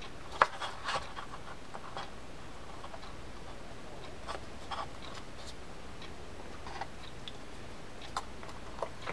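Faint, irregular clicks and scratches of small metal parts being handled as a drag washer retainer clip is worked into a Penn Battle II 4000 spinning-reel spool; the sharpest click comes about half a second in.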